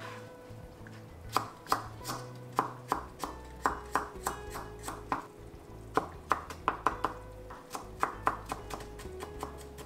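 Kitchen knife chopping on a wooden cutting board: a run of sharp, uneven strokes starting about a second in, with a short pause midway. Soft background music with a steady bass line runs underneath.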